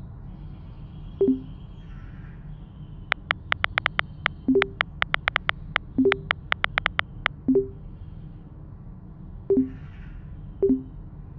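Smartphone keyboard typing clicks in quick runs, and a short low two-note blip about six times as text messages are sent and received. A low steady hum sits underneath.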